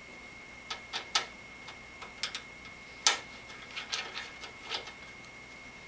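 Screwdriver turning out a screw from a computer case's metal crossbar: irregular light clicks and ticks of the tip working in the screw head, the loudest click about three seconds in.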